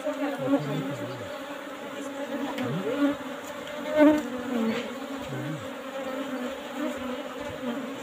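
Hum of a large colony of Asian honeybees (Apis cerana indica) swarming over an opened wall comb, a dense steady buzz with single bees passing close, their pitch sliding up and down.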